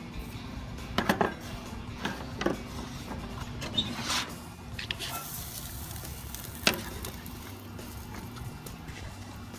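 Kitchen knife knocking on a plastic cutting board while chopping garlic, in scattered taps with a quick cluster about a second in and a sharper knock near the end, plus a brief scrape in the middle; background music runs underneath.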